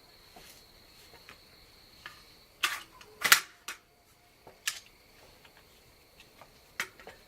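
A few sharp clicks and clacks of steel-cased .223 cartridges and an AR magazine being handled, the loudest pair about three seconds in. Insects keep up a steady high drone underneath.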